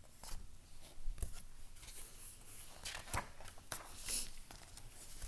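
Pages of a picture book being turned and handled: soft paper rustling with a few light clicks and knocks scattered through.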